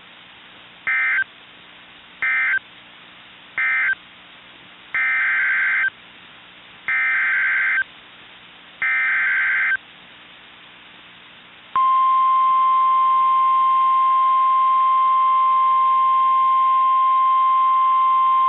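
NOAA Weather Radio Emergency Alert System signal: three short SAME data bursts (the end-of-message code), then three longer SAME header bursts announcing the next alert. About twelve seconds in, the steady 1050 Hz warning alarm tone starts and holds.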